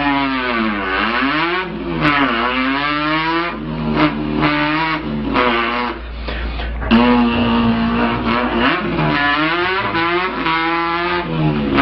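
A person imitating a car engine with the mouth: the pitch climbs as if revving through the gears, drops sharply at each shift and climbs again, with a couple of stretches held at a steady pitch like cruising.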